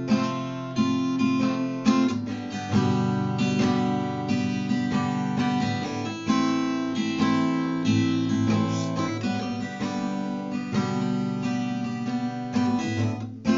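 Acoustic guitar strumming the song's chords with no singing. Each stroke rings on, and a last strong chord is struck at the very end.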